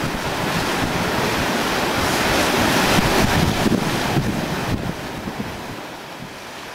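Ocean surf washing over a rocky shoreline, with wind buffeting the microphone. The sound swells to its loudest about halfway through, then fades away near the end.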